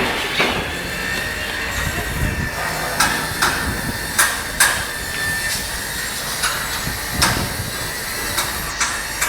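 Hammer blows on a building site, about ten sharp knocks at irregular intervals over a steady low background rumble.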